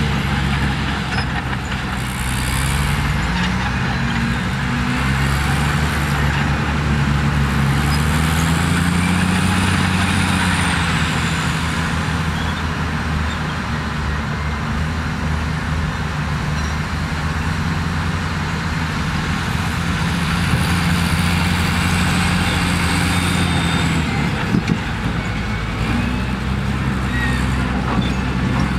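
Heavy diesel engines of a crawler bulldozer and dump trucks working, running steadily with the engine pitch rising and falling several times as they rev under load.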